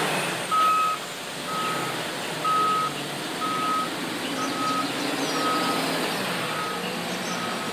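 JCB wheel loader reversing, its back-up alarm beeping a single steady tone about once a second over the running diesel engine.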